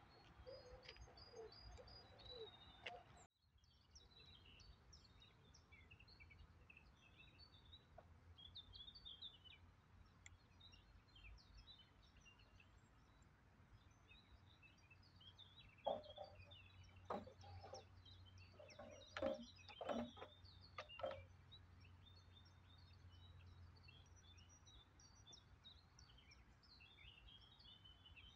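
Small birds chirping and singing over a faint, steady outdoor background hum. A little past halfway, a cluster of a few knocks and clatters stands out as the loudest sounds.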